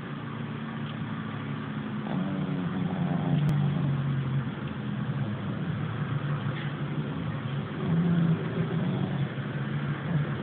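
A pet snoring in slow breaths, a low rough drone that swells and fades, loudest about two to four seconds in and again around eight seconds.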